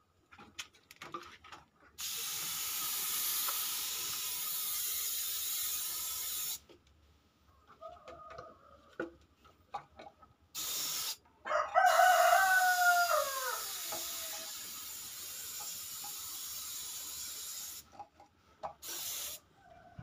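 Compressed-air gravity-feed spray gun spraying paint in hissing bursts: one of about four seconds, a brief one, a long one of about six seconds, and a short one near the end. About twelve seconds in, a loud call that falls in pitch rises over the hiss.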